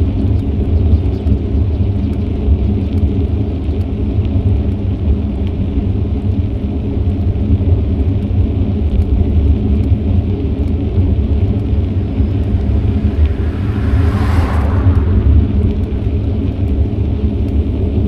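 Steady low wind rumble on an action camera's microphone while riding a bicycle, with one vehicle rushing past about three-quarters of the way through.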